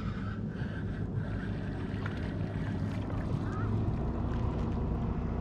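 Wind rumbling on the microphone aboard a small fishing boat: a steady low noise without sharp events.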